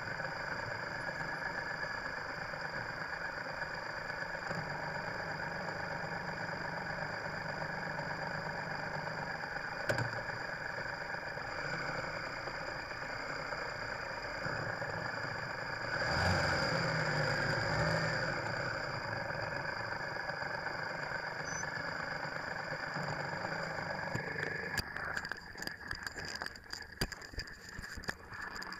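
Motorcycle engine idling as the bike creeps through slow city traffic, with the engines of the cars and buses around it and a steady high whine over all. About sixteen seconds in a nearby engine swells louder for a couple of seconds, and near the end a run of knocks and rustles takes over.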